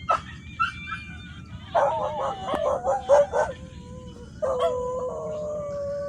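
A dog yelping in a quick run of short calls, then howling in one long, wavering call.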